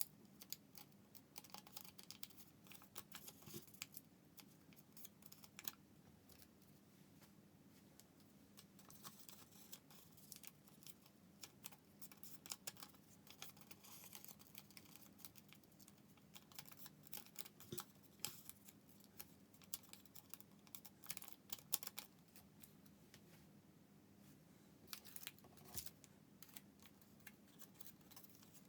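Sheets of origami paper handled, folded and creased by hand: faint, irregular crinkles, taps and short scrapes of paper, some louder clicks scattered through.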